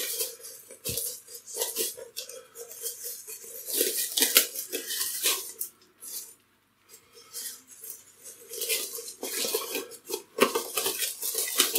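Plastic cling film crinkling and rustling as it is stretched and pressed over the rim of a bowl, with a few light clinks of the bowl. The noise pauses for about a second just past halfway, then starts again.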